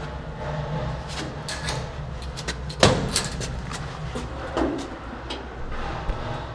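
Výtahy Bohumín passenger lift car with a steady low hum, overlaid by scattered knocks and clicks and one sharp clack about three seconds in.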